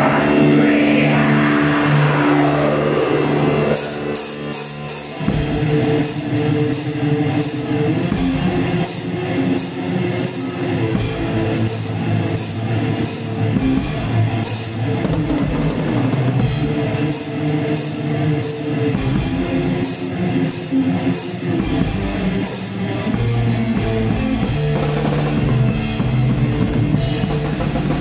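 Live black metal band playing, the drum kit loud and close with distorted guitars underneath. A falling pitch sweep runs through the first few seconds, then cymbals crash on a steady beat for the rest of the song passage.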